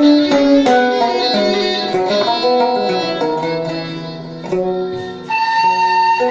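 Instrumental interlude of a traditional Arabic music ensemble: a plucked string instrument plays a quick run of notes that each ring and fade. About five seconds in, held melody notes from a wind or bowed instrument take over.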